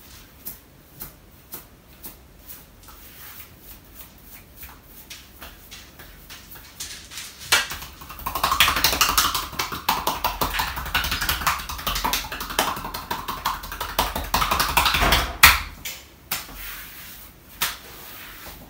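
Hands massaging a man's bare skin: a few seconds of soft, scattered taps. Then from about eight seconds in comes a loud run of rapid hand strokes on his back that stops abruptly at about fifteen seconds.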